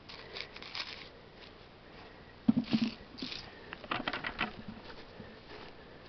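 Dry reindeer lichen and pine needles crackling and rustling as they are handled and stepped on, in scattered bursts, with a louder crunch about two and a half seconds in and a quick cluster of crackles about four seconds in.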